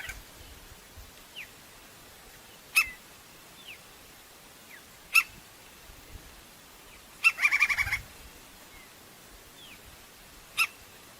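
Crimson-crested woodpecker calling: a few short, sharp single notes spaced seconds apart, and about seven seconds in a rapid rattling series of about ten notes lasting under a second.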